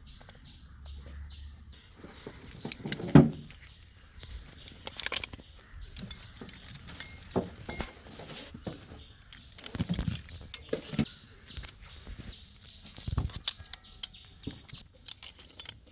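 Irregular metallic clinks and knocks of climbing hardware being handled, with a short falling cry about three seconds in.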